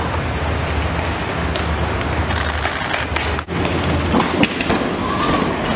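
Steady outdoor city street noise, a constant rumbling hum with faint scattered clicks, that drops out for an instant about three and a half seconds in.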